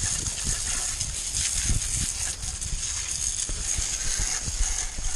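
Garden hose spray nozzle hissing steadily as its jet of water hits a dirt bike and the wet grass, with wind buffeting the microphone in uneven low rumbles.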